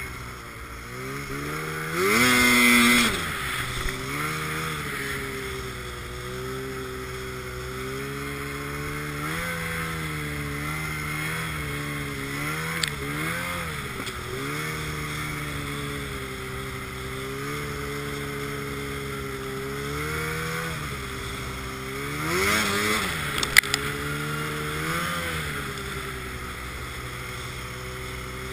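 Arctic Cat M1000 snowmobile's two-stroke engine running under way, its pitch rising and falling with the throttle. It is revved hard about two seconds in and again near the end, over a hiss of snow and wind.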